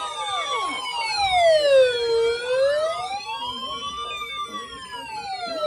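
Wailing siren, its pitch rising and falling slowly, about one full rise and fall every four seconds, with other siren tones overlapping it.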